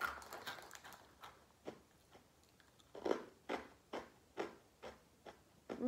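A person chewing crunchy sausage-flavoured rusk snacks (sukhariki). There is a burst of crunching at the start, then short, sharp crunches about twice a second through the second half.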